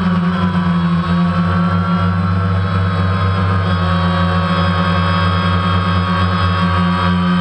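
DJI Phantom quadcopter's four electric motors and propellers running steadily in flight, heard up close from the camera mounted on the drone: a loud hum with a higher motor whine that shifts slightly in pitch.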